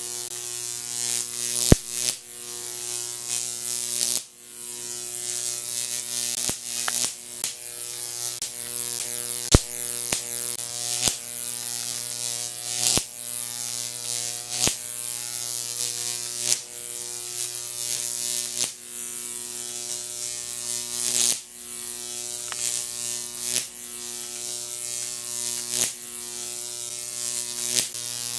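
Jacob's ladder high-voltage arc between copper-rod electrodes, fed by a 15,000-volt neon sign transformer. It gives a loud, harsh electrical buzz with a crackling hiss. The arc climbs, breaks and re-strikes every couple of seconds, with several sharp snaps along the way.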